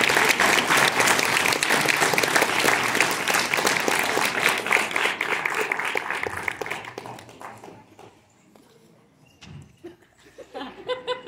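Audience applauding, a dense clapping that fades away about seven to eight seconds in.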